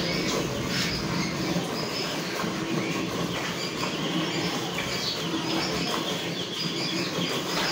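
Hand milking of a cow: streams of milk squirting from the teats into a metal pail already holding frothy milk, in a steady rhythm of alternating strokes.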